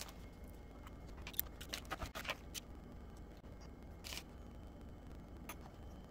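Small clicks and short scrapes of hands working with small tools and laptop parts on a wooden desk: a quick run of clicks about a second in, a brief scrape near the middle, and one more click near the end, over a low steady hum.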